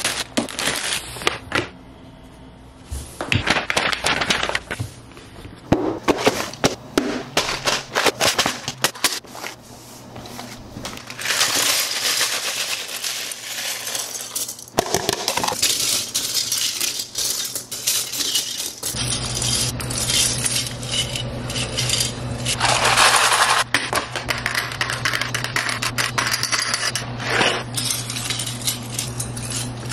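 Small hard plastic model-kit parts clattering and clicking as they are tipped out of clear plastic containers, spilled into a heap and pushed around by hand; sealed plastic bags of sprue runners crinkle at the start. A steady low hum comes in about two-thirds of the way through.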